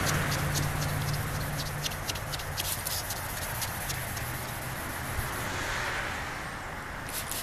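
A hand wet-sanding a plastic headlight lens: a rubbing hiss with many small clicks and ticks. Under it is a low steady hum that fades about two seconds in.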